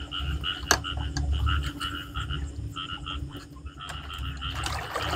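Frogs calling in a chorus at a pond at night, a run of short repeated notes several times a second, with a low rumble and a single click about a second in.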